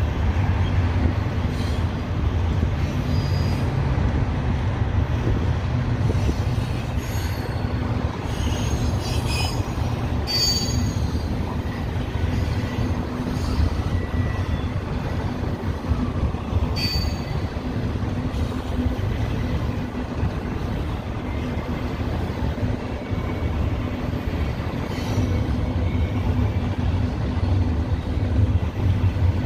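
Union Pacific double-stack intermodal train rolling past: a steady low rumble of steel wheels on rail, with brief high-pitched wheel squeals now and then.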